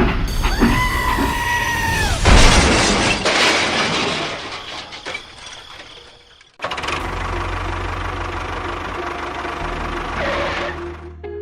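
A short horn-like tone that dips as it ends, then a loud crash that fades away over a few seconds. After that, a steady engine-like rumble with hiss starts suddenly and cuts off near the end.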